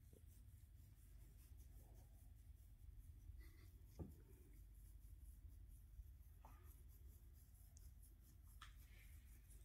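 Faint scratching of fingernails on a Boston terrier's belly fur, with a soft tap about four seconds in.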